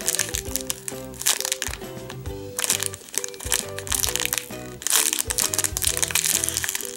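Thin clear plastic bag crinkling and crackling in bursts as a soft foam squishy is squeezed and turned inside it, with the loudest crackles about two and a half and five seconds in. A light, cheerful background music tune plays throughout.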